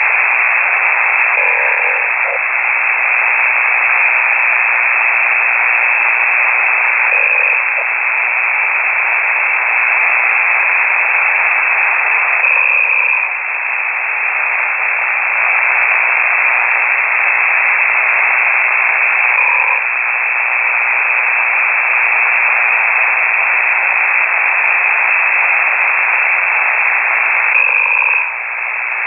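Amateur radio signal heard through a KiwiSDR receiver: a steady, thin static hiss with a faint sound recurring about every six seconds, a ham operator snoring on the air.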